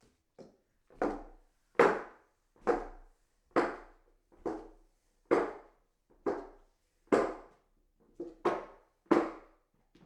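Footsteps climbing hollow wooden stairs: a steady tread of hollow knocks, about one step a second, some steps landing as a double knock, each ringing briefly in the wood.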